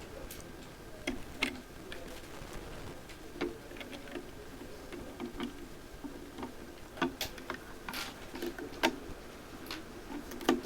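Plastic construction-kit beams and bricks being handled and pressed together, giving scattered, irregular clicks and taps.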